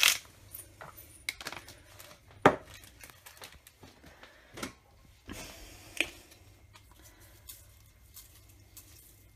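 Scattered clicks and knocks of seasonings being added to a stainless steel pot of water: a pepper mill grinding, then salt being added, with a sharper knock about two and a half seconds in.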